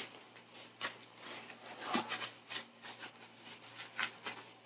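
Faint handling sounds of a small gift pouch being opened: a few light clicks and soft rustles spread over a few seconds.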